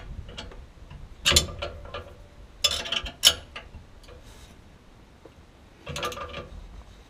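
Hand socket ratchet clicking in three short bursts, about a second in, about three seconds in and about six seconds in, as a nut is tightened by hand.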